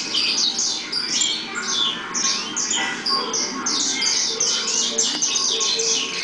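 Many caged saffron finches chirping and singing at once: a dense, unbroken chorus of quick, high, overlapping notes.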